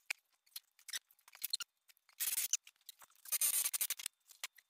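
Metal clicks and scraping as a garden tractor's rear wheel is fitted onto its hub studs by hand, with two short scraping noises about two and three and a half seconds in.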